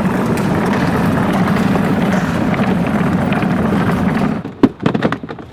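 Children's electric ride-on toy pickup driving, its motors and plastic wheels running steadily with a low hum, cutting off about four and a half seconds in, followed by a few short knocks.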